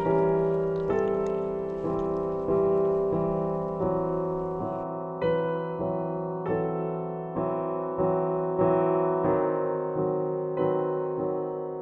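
Slow, gentle solo piano music. Single notes and chords are struck about every two-thirds of a second and left to ring and fade.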